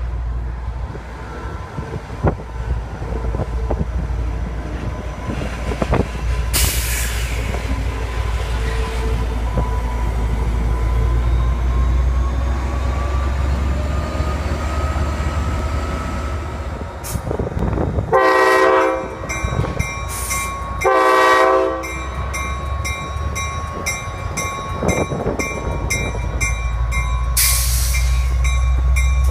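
NCDOT EMD F59PH locomotive No. 1810, its diesel engine rumbling steadily as the train moves through the station, with a thin squeal over it. A little past the middle the locomotive horn sounds two blasts of about a second and a half each, and a bell then rings about twice a second.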